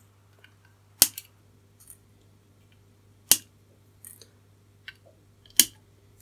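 Flush-cut wire cutters snipping excess resistor leads off a circuit board: three sharp snips a little over two seconds apart, with faint clicks between.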